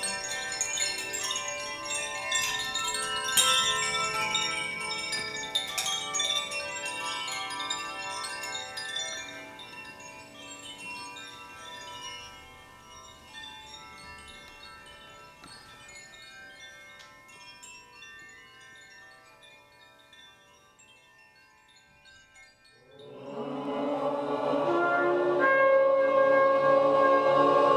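Hand-held chimes ring with many bright, overlapping tones and scattered strikes, slowly dying away to near silence. About five seconds before the end, a blown horn comes in with one sustained, rich tone that swells in loudness.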